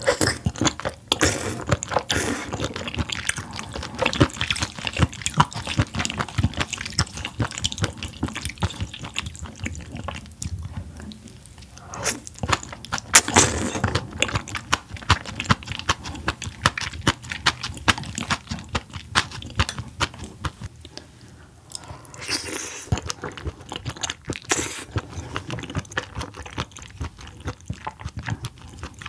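Close-miked wet chewing and lip-smacking of soft seafood, a dense run of small moist clicks and squelches with louder bites now and then.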